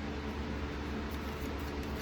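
Steady low background hum with a flat hiss: room tone with no distinct events.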